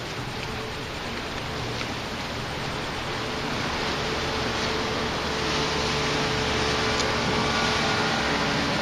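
Steady rushing noise with a faint low motor hum, growing gradually louder: a motorboat approaching on the channel.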